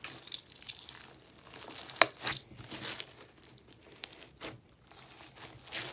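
Crunchy foam-bead slime crackling as it is squeezed and kneaded by hand, with a sharp pop about two seconds in.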